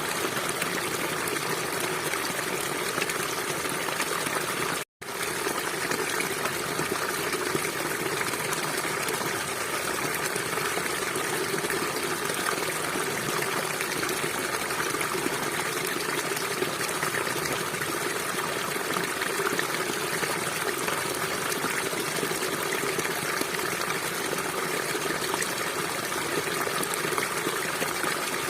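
River water flowing and rushing steadily, an even wash of noise with no pauses except a split-second dropout about five seconds in.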